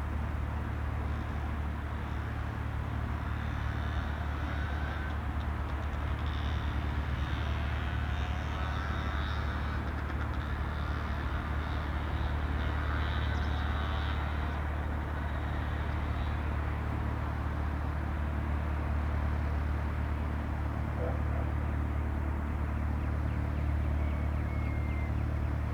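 A Cessna 172's piston engine and propeller running at a steady low drone, heard from a distance in the open, with no sign yet of the rise to takeoff power.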